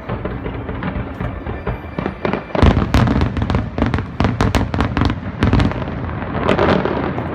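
Fireworks bursting in a rapid barrage of bangs that starts about two and a half seconds in, over the show's music.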